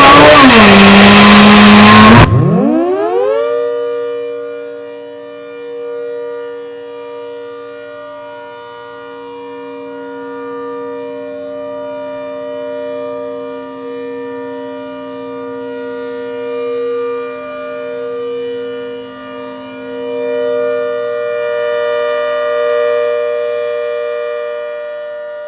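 ACA Hurricane outdoor warning siren. It opens with about two seconds of loud, overloaded, distorted sound, then winds up, rising in pitch over about a second, and holds a steady chord of several tones. Its loudness swells and fades every few seconds.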